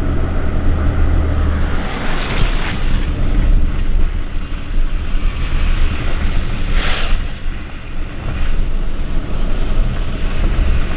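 Pickup truck driving: a steady low rumble of engine and tyres on the road, with two brief louder rushes of noise about two and seven seconds in.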